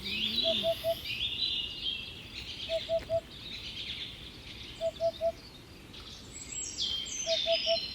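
Several birds singing and chirping, with warbling, sliding high notes. Under them a lower call of three short notes repeats about every two seconds.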